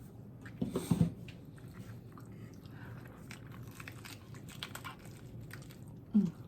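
A bite into a crispy tostada shell, with a loud crunch about a second in. Crunchy chewing follows close to the microphone, with a short vocal sound near the end.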